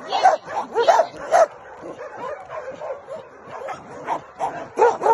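Shelter dogs yipping and barking in short rising-and-falling calls, several a second. The calls are fainter for a couple of seconds in the middle, then louder again near the end.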